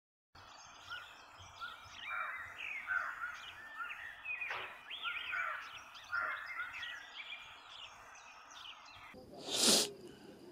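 Several songbirds chirping and singing in a quiet countryside outdoor ambience, many short calls with quick pitch glides. Near the end a short, loud whoosh swells up and cuts off.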